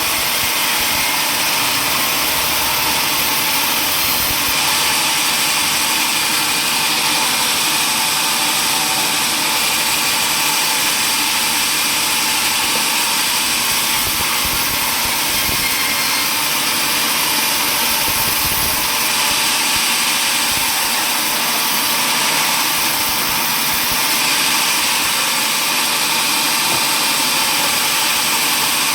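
Sawmill machinery running steadily: a loud, even machine noise with a slight shift in tone every several seconds.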